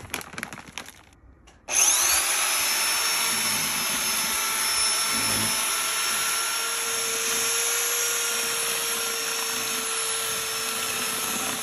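Powdered tile mortar pouring from its bag into a plastic bucket, then a corded drill with a paddle mixer starting abruptly about two seconds in and running steadily at full speed, stirring the thinset in the bucket.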